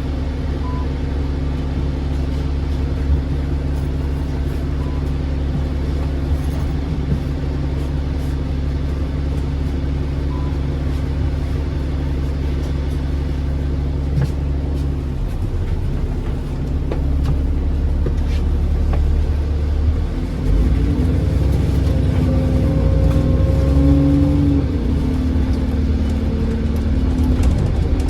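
Diesel bus engine running steadily at a low, even pitch, then about twenty seconds in growing louder as its pitch rises and shifts, the engine working harder as the bus accelerates.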